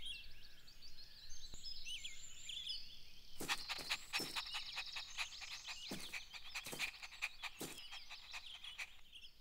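Faint garden ambience of small birds chirping. From about three and a half seconds in, a run of short ticks or taps joins the chirps.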